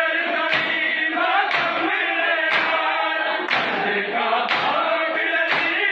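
A group of men chanting a noha together, with unison chest-beating (matam) striking about once a second in time with the chant.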